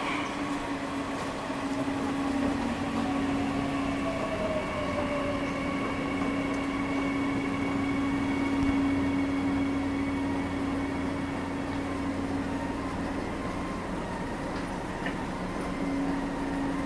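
Subway station noise heard from a moving escalator: a steady low hum with running noise from a metro train. A whine falls in pitch over the first few seconds.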